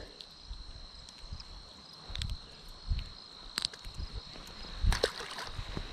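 Crickets trilling steadily on one high note. Over it come a few soft knocks and clicks from hands unhooking a small brook trout, the loudest near the end.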